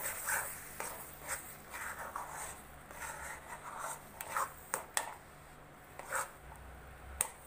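Spatula scraping and knocking against a metal kadhai while stirring thick, nearly cooked chana dal and jaggery paste (puran): irregular short scrapes with a few sharp clicks.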